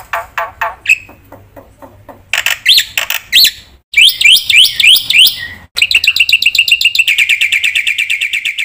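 Black-winged myna (jalak putih) singing loudly in a varied song: a run of short repeated notes, then quick rising chirps, then a fast, even rattling trill near the end.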